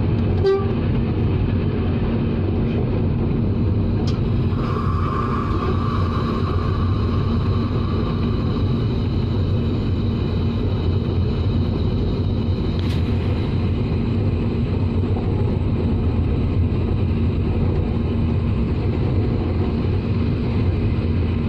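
ZCUP-30 diesel-electric locomotive under way, with a steady, loud mix of engine and track noise. A horn sounds for about four seconds, starting about four and a half seconds in.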